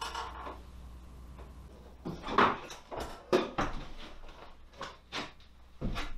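Scattered knocks and clunks of a plastic ride-on toy car's body being bumped and handled as someone climbs out of it, with shuffling about; the knocks start about two seconds in.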